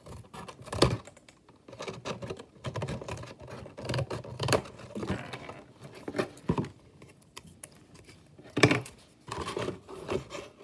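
Cardboard being cut with scissors and handled: irregular snips, taps and scrapes, with a sharp knock about a second in and another near the end.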